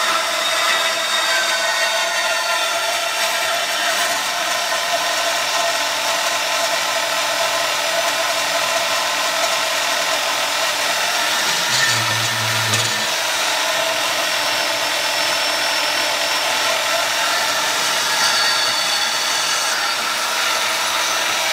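Bauer 10 amp variable-speed portable bandsaw running steadily as its blade cuts down through a hollow extrusion clamped in a vise.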